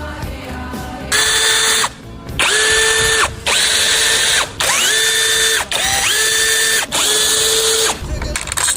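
A handheld power tool, such as a power ratchet, run in six short bursts; each burst spins up quickly to a steady whine, then stops.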